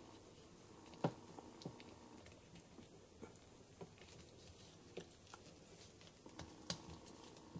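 Faint, scattered clicks of a plastic action figure and its proton pack being handled and fitted together, the sharpest about a second in.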